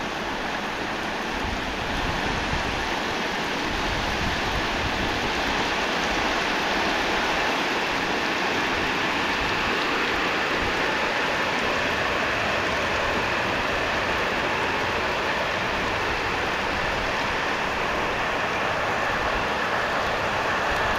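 Heavy rain pouring down in a steady downpour, a dense, even hiss that holds without let-up.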